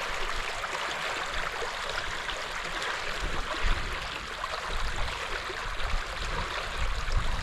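Water rushing and splashing steadily along the hulls of a small sailing catamaran under way, with a low rumble of wind on the microphone underneath.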